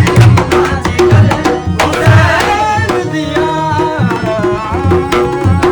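Qawwali music: regular tabla strokes, with a sustained, wavering melodic line coming in about two seconds in.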